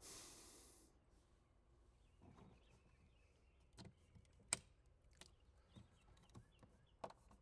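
Faint handling sounds of hands working on the camera wiring: a short hiss at the start, then a few scattered clicks and taps, the sharpest about halfway through.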